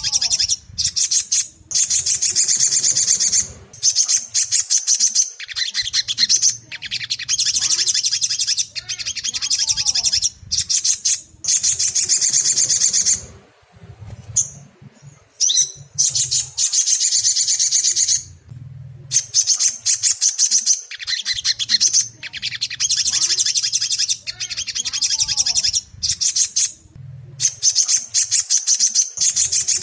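Ruby-cheeked sunbird (sogon) song: rapid, high chattering trills in phrases of a few seconds, broken by short pauses and repeating over and over.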